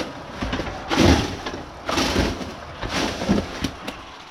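Footsteps with crunching and rustling debris underfoot, irregular thuds about once a second.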